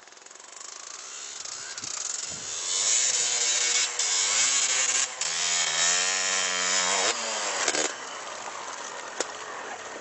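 Snow bike, a dirt motorcycle fitted with a front ski and rear track, passing under power through deep snow: the engine note builds, is loudest in the middle, rises and then falls in pitch, and drops off near the end, over a hiss of thrown snow.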